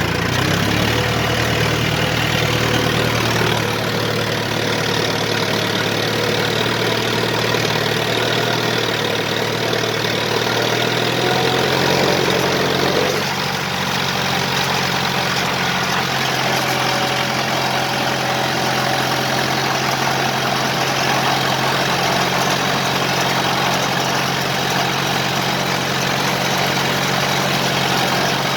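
Mahindra Arjun 555 tractor's diesel engine running steadily while ploughing. Its note shifts up slightly about twelve seconds in.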